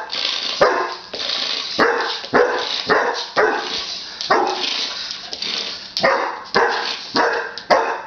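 Dog barking repeatedly at a remote-control car, about a dozen short barks, roughly one every half second to second.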